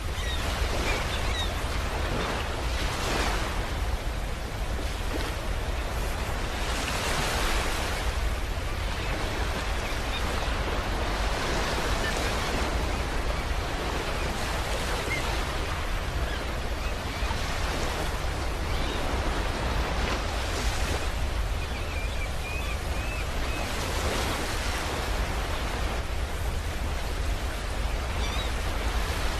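Steady rushing noise presented as the 'sound' of the star UY Scuti, swelling and ebbing every few seconds like surf over a constant deep rumble, with a few faint brief chirps.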